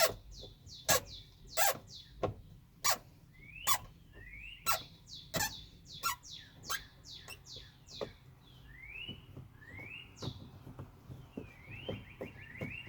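A long, coarse screw squeaking as a Phillips screwdriver turns it out of a tight plastic grommet in a car door, in short rising and falling squeaks. Sharp clicks come about every two-thirds of a second, and the squeaks come faster near the end.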